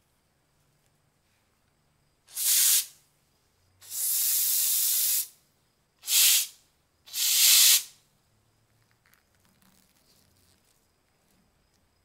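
Aerosol lubricant spray fired through a thin red extension straw in four hissing bursts, the second the longest at about a second and a half, wetting rusty lighter parts to loosen the rust.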